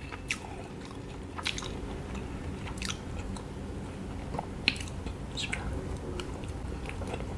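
Close-miked eating sounds: scattered wet mouth clicks and smacks of chewing, then a bite into a fried sausage pulled off its skewer near the end.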